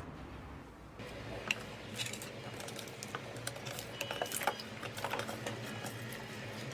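Slime being squeezed and poked by hand, giving irregular small clicks and crackles.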